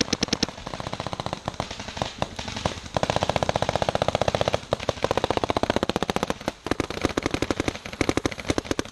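Paintball markers firing rapidly in long strings of shots, many per second, heaviest in the middle.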